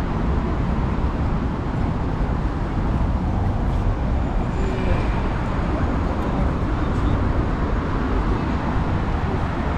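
Steady city street traffic noise: a continuous rumble of road vehicles.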